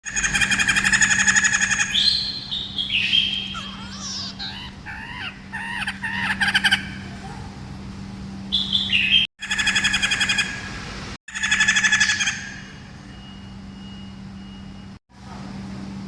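Parrot calls and song: harsh, buzzy screeching calls alternating with rising and falling whistled notes, cut together from several clips with abrupt breaks, over a steady low electrical hum.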